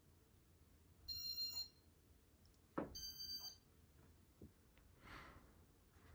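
Electronic beeps from a Casablanca ceiling fan's control: two short, high beeps about two seconds apart, with a sharp click just before the second.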